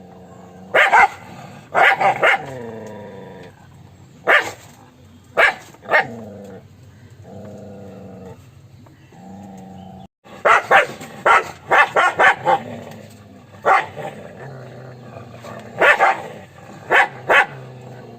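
A dog barking loudly in short, sharp barks, singly and in quick runs, with a rapid series of barks just after a brief break about ten seconds in. A low steady sound carries on between the barks.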